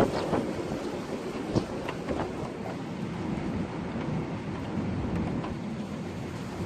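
Strong storm wind rushing steadily, broken by several sharp knocks and rattles; the loudest knock comes right at the start.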